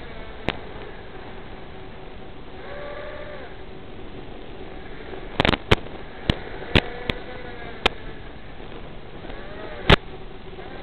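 Hiss of an FPV quadcopter's analog video-link audio, with a faint whine of the motors rising and falling in pitch. Sharp static pops break in once near the start and about seven times in the second half, as the radio signal weakens.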